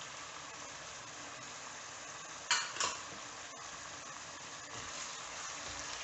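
Chicken pieces and small onions sizzling as they fry in oil in a pan. There are two brief clinks of a utensil against the pan about two and a half seconds in.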